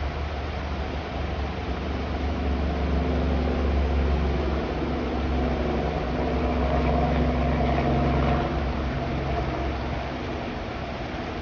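Steady rain noise with a low rumble and a vehicle engine hum that swells through the middle and fades near the end.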